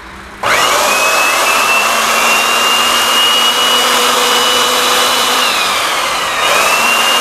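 Miter saw's motor switched on to test a newly fitted replacement drive belt: it spins up quickly to a steady high whine, starts to wind down after about five seconds, and is switched on again and spins back up about a second later.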